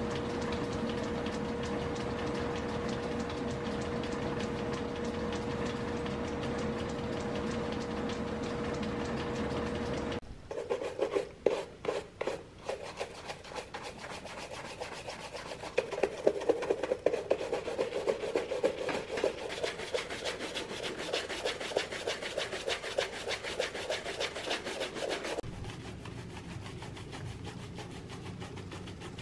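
A shoe finishing machine's spinning wheel runs against a shoe's sole edge with a steady hum and one held tone, then cuts off abruptly about ten seconds in. A hand brush is then swept briskly back and forth over shell cordovan leather uppers in rapid rubbing strokes, which stop a few seconds before the end.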